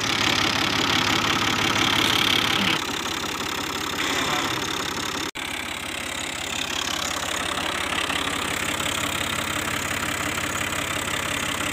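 Tractor diesel engine idling steadily, with a momentary break in the sound about five seconds in.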